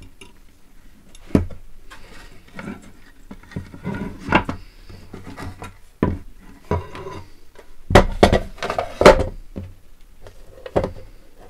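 Handling noise from a plastic ABS project box and a steel bracket on a wooden tabletop: irregular knocks, clicks and rubbing as the box is turned over and screws and washers are fitted. The two loudest knocks come about two-thirds of the way through.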